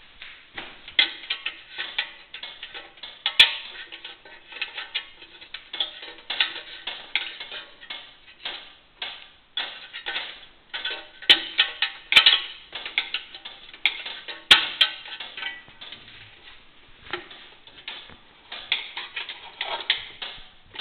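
Steel plates of a 16th-century Italian armour helmet clicking and clinking as its visor is handled and moved on its pivot: an irregular run of small metallic knocks, a few sharper ones, some ringing briefly.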